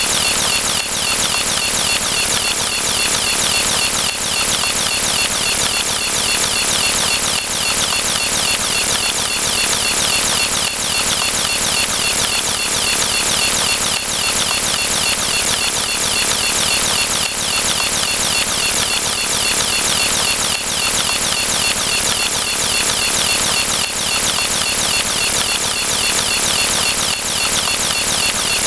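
A dense, unbroken wall of many overlapping electronic sound effects, blurred into a loud steady hiss-like din with countless quick pitch sweeps running through it.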